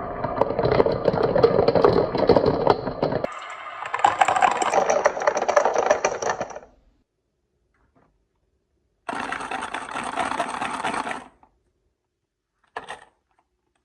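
Marbles rolling and rattling down a HABA wooden marble run, a continuous clatter that stops about seven seconds in. After a pause there are about two more seconds of rolling clatter, then a brief click near the end.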